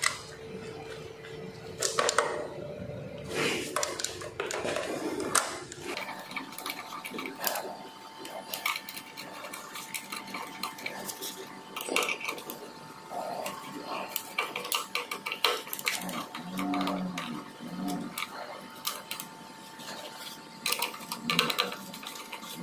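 Screwdriver working the terminal screws of a single-phase electronic kWh submeter, with irregular small metallic clicks, taps and scrapes as the wires are seated and clamped in the terminal block.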